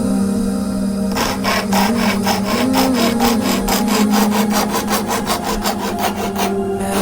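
Manual pocket chainsaw chain rasping through wood in quick, even strokes, starting about a second in and stopping abruptly just before the end.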